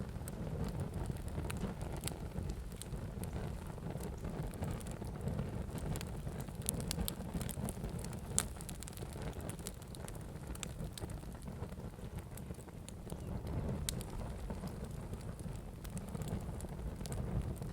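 Fire burning with a steady low rumble and irregular sharp crackles and pops, one pop louder than the rest about eight seconds in.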